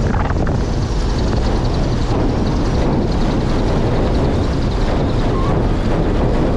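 Cessna 172's piston engine running at low taxi power as the plane rolls over a grass airstrip, with wind rumbling on the outside-mounted microphone.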